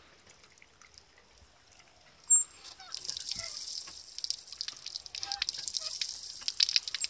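Water from a decorative water feature trickling and splashing in a continuous stream of fine drips, starting about three seconds in. It is preceded by a single sharp click about two seconds in.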